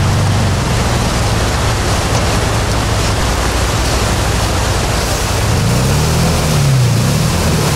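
Off-road buggy's engine running and revving as it drives down into a fast-flowing river, over the steady rush of the rapids. The revs rise and fall a couple of times near the end.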